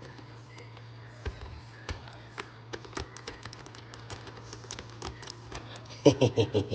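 Homemade double-peak pick clicking and scraping in the keyway of a Master Lock 570 padlock as it is raked, a string of quick irregular metallic ticks that grow denser, with a louder burst of rattling about six seconds in.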